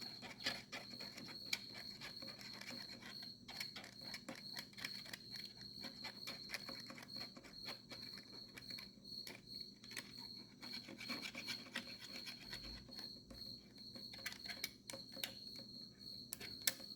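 An Allen wrench scraping and rubbing inside a 3D-printed plastic RC car body as it spreads clear two-part epoxy, in quick irregular strokes. A steady high cricket chirp runs beneath it.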